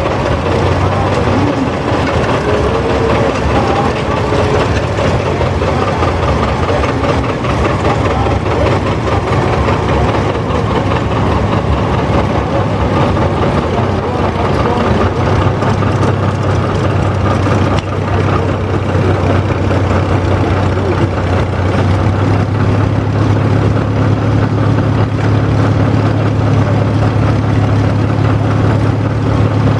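Several antique farm tractor engines running at slow parade speed as the tractors roll past one after another, a steady low engine hum that grows stronger in the last third.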